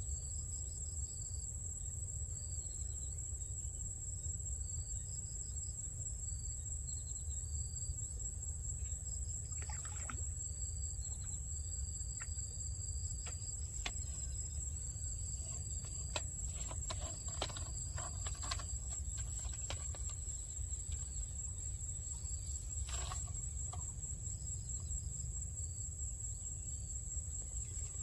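Steady high-pitched insect trilling, like crickets, with short bird chirps scattered through it and a few faint clicks, over a low rumbling background.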